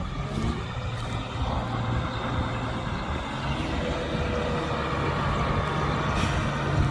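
Heavy construction vehicle's diesel engine running steadily, slowly growing louder.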